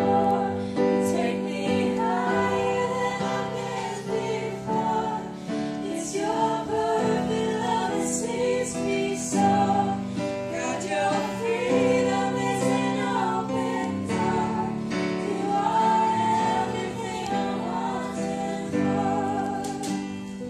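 Live acoustic worship music: a woman singing over strummed acoustic guitar and keyboard.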